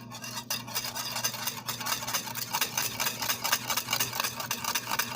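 Rapid stirring in a saucepan, a utensil scraping quickly and steadily against the pan as the custard mixture cooks in the boiling milk, over a steady low electrical hum.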